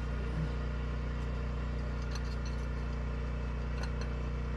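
1972 Ford pickup's engine idling steadily, an even low hum.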